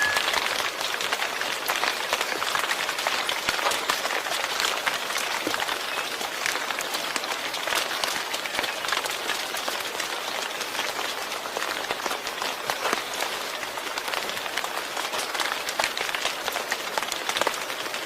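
Steady rain falling, a dense even hiss of many small drop hits.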